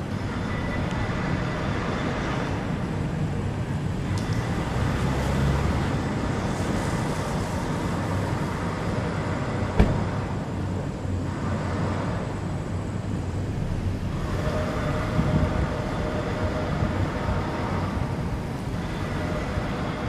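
City street ambience: road traffic passing with a steady low rumble that swells and fades. There is one sharp knock about ten seconds in.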